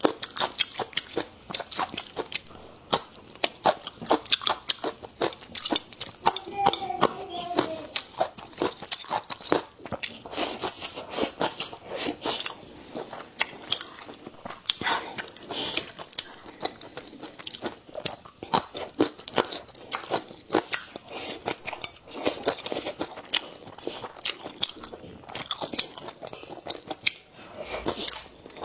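Close-miked crunching and chewing of pickled green and red chili peppers: many crisp bites in quick, irregular succession.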